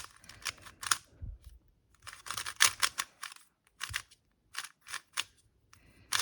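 Moyu RS3 2020 3x3 speedcube being turned quickly, its plastic layers clacking in fast runs of turns broken by short pauses.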